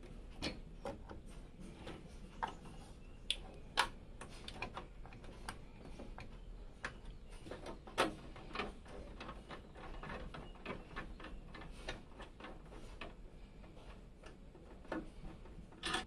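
Scattered light clicks, taps and knocks from an XFX Speedster SWFT 319 Radeon RX 6800 graphics card being handled and fitted into a PC case's PCIe slot, irregular, with a few sharper knocks, the loudest about eight seconds in.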